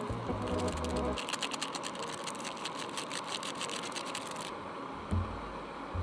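Rapid crinkling and crackling of plastic food packaging being handled over a metal camping pot of instant noodles, with a single soft thump near the end.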